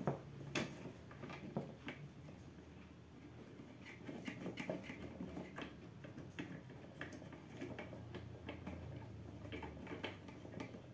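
Faint, irregular small clicks and taps of plastic parts being handled as the metal detector's search coil bracket and its mounting bolt are fitted together.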